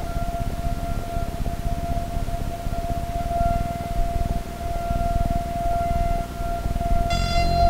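Live-coded electronic music: one steady, high, siren-like sine tone held throughout over a low, flickering rumble. A brighter, buzzier tone with many overtones joins near the end.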